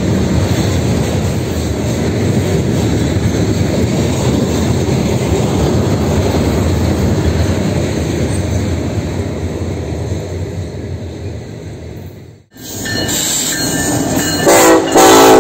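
Freight train's hopper cars rolling past in a steady rumble, which eases off and cuts out abruptly about twelve seconds in. Near the end, the horn of an approaching KCSM EMD SD70ACe locomotive sounds loudly in two short steps.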